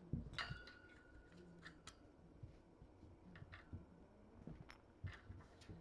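Kittens bumping and brushing against the camera: a few soft thumps near the start, then scattered sharp clicks through the rest, with a brief ringing note about half a second in.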